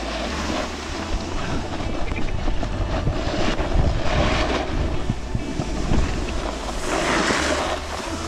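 Wind rushing over the camera microphone and a snowboard's edges scraping over packed snow during a run, with a louder surge of scraping about seven seconds in.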